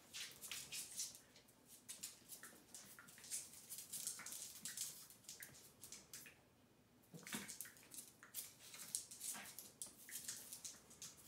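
Two small dogs play-wrestling on a hard floor: claws scrabbling and quick scuffling, with a lull of about a second just past halfway.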